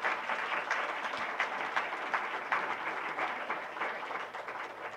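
Audience applauding: dense clapping that slowly dies down over the last couple of seconds.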